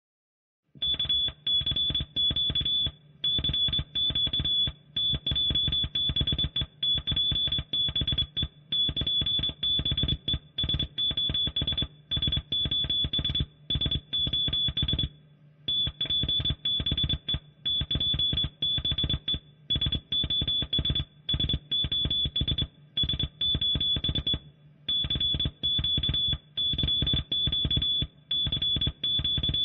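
SOS in Morse code, sent as a high-pitched beep tone with a low buzz under each beep, keyed in short and long pulses that repeat over and over. It starts about a second in.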